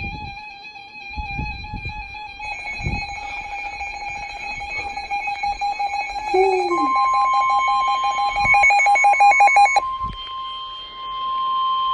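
Weather radio alert tones: a steady, slightly wavering electronic alarm. About seven seconds in, the NOAA Weather Radio 1050 Hz warning alarm tone joins it. The other tones pulse briefly and cut off about ten seconds in, leaving the single steady alert tone, the signal that a warning message follows.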